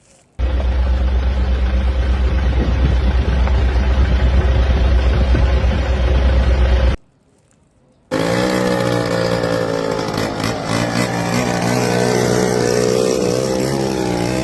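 A motor running loudly and steadily in two stretches, each starting and stopping abruptly, with about a second's break after the first; the second stretch rises a little in pitch as it starts.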